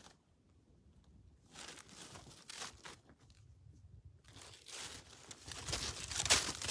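Rustling and crunching close to the microphone, in irregular bursts starting about a second and a half in and growing louder toward the end.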